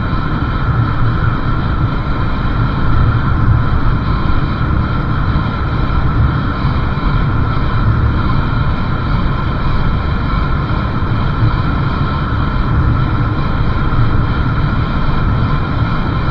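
Steady road noise from a motorcycle being ridden: heavy wind rumble on the microphone with the engine and tyres running underneath, unbroken and even in level.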